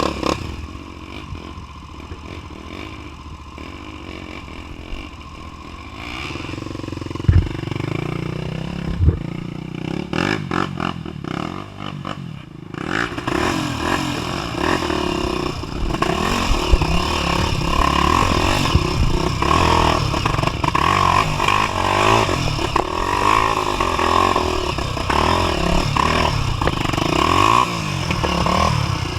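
250 cc single-cylinder four-stroke trail bike ridden off-road, its engine low at first with a couple of sharp knocks and some clattering over rough ground, then louder from about halfway, revving up and down repeatedly.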